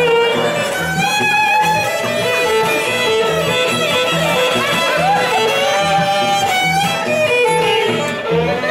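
A fiddle playing a lively tune, its bowed notes carrying the melody over band accompaniment that keeps a steady beat.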